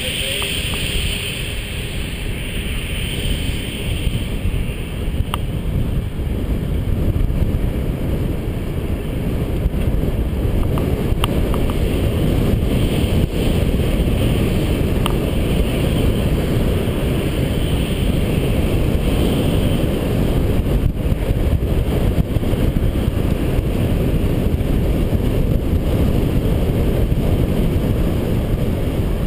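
Wind rushing over a GoPro HD Hero's microphone on a road bike riding at speed: a steady, loud low rushing noise, with a few faint ticks.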